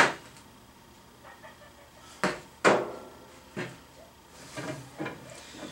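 Hard plastic knocks of PVC pipe and fittings being handled and fitted together: a sharp one at the start, two more about two seconds in, another a second later, then softer clatter near the end.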